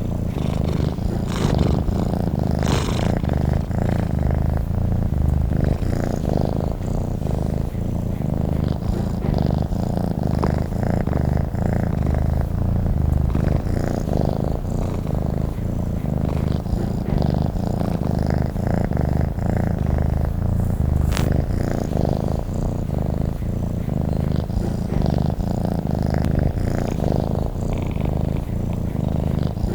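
Domestic cat purring steadily, a continuous low rumble.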